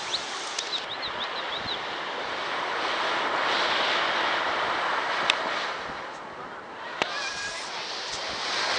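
Ocean surf washing in, a steady rushing that swells and eases, with two sharp clicks in the second half.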